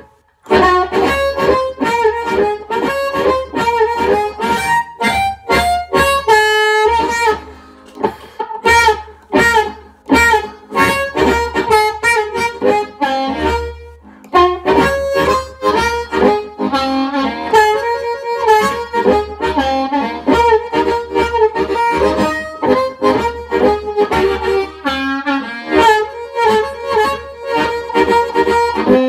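Amplified blues harmonica: an A-flat diatonic harp cupped tight against a Shure Commando 420 harp microphone and played through an amp with a little echo, in phrases of notes and chords with a honking mid tone. The playing breaks briefly about seven and fourteen seconds in.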